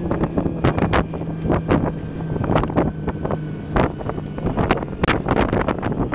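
Snowmobile engine running at a steady drone while riding over snow, with wind buffeting the microphone and frequent short knocks.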